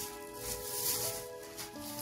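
Background music with held notes that change in steps.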